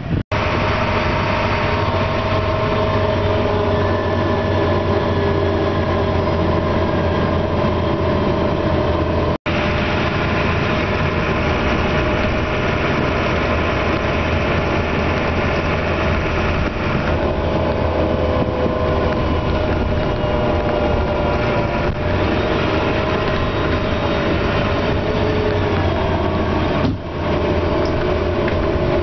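A vehicle's engine running steadily while it drives, heard from on board, with a low hum and a steady whine over it. The sound cuts out for an instant near the start and again about nine seconds in.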